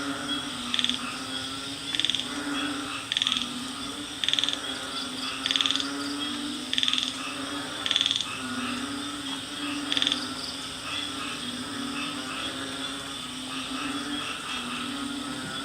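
Night-time tropical jungle chorus of frogs and insects: a steady high insect trill and a low, wavering frog chorus. Over them, a loud pulsed call repeats about eight times, roughly once a second, and stops about ten seconds in.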